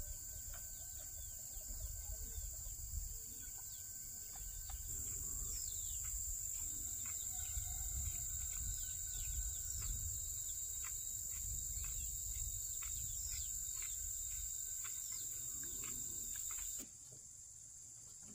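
Insects shrilling in a steady, high continuous chorus, with many short quick chirps over it and a low rumble underneath. The shrilling grows louder about five seconds in and drops away sharply near the end.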